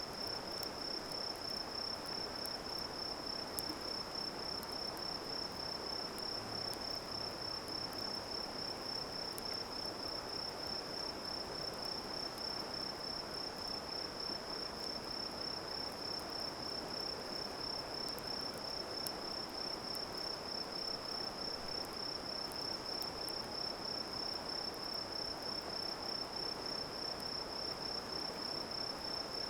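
A cricket-like insect trilling, one steady high-pitched, fast-pulsing tone that never breaks, over a steady background rush. Scattered faint ticks of a campfire crackling sound through it.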